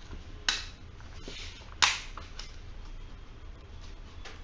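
Handheld stapler being pressed shut through folded paper: two sharp snaps about a second and a half apart, the second the louder, with a few softer clicks between and after.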